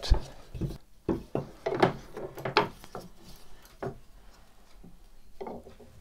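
A solid clay brick handled on a wooden workbench: a sharp knock right at the start, then several knocks and scrapes as the brick is turned and set down on the wood, dying away to quieter handling in the second half.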